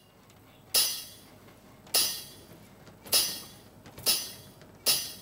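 Anklet bells (ghungroo) jingling with stamps of a dancer's foot: five sharp metallic strikes, roughly one a second, each ringing out and fading within about half a second.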